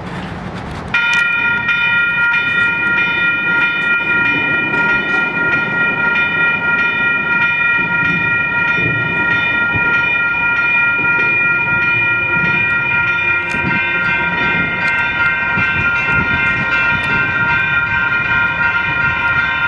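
Union Pacific autorack freight train passing, with a steady high chord of several tones that starts abruptly about a second in and holds unbroken over the rumble of the cars.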